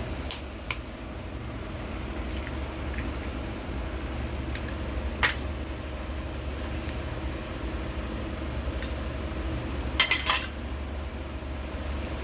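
Mixing bowl clinking and knocking now and then as chicken pieces are worked through an egg and spice marinade. The strongest knock comes about five seconds in and a quick run of clinks about ten seconds in, over a steady low hum.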